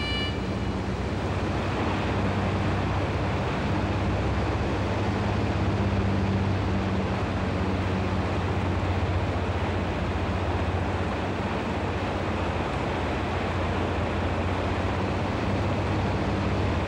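Steady drone of a small propeller plane's engine with a rushing noise over it, heard from on board in flight.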